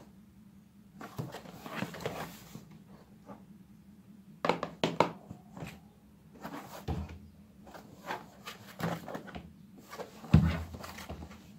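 A cardboard toy-blaster box being handled and turned over in the hands: scuffing and rustling of the cardboard, with scattered knocks and dull thumps, the loudest about ten seconds in.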